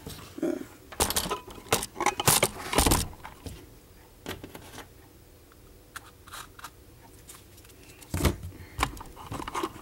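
Handling noise from cardboard toy guns being moved about: a cluster of knocks and rustles in the first three seconds, scattered light ticks, then another few knocks near the end.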